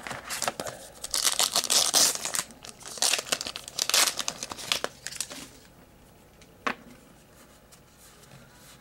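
Wrapper of a 2008-09 Topps Treasury basketball card pack being torn open and crinkled in the hands: dense crackling for about five seconds, then only faint handling of the cards with a single click about two-thirds of the way in.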